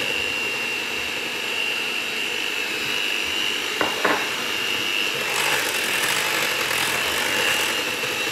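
Electric hand mixer running steadily with a high whine, its beaters churning a yoghurt and condensed-milk mixture in a glass bowl. Two short clicks come about four seconds in.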